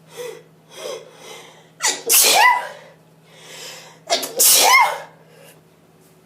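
A person sneezing twice in an allergic sneezing fit. A few short catching breaths come first, then two loud sneezes about two seconds apart, with an in-breath between them.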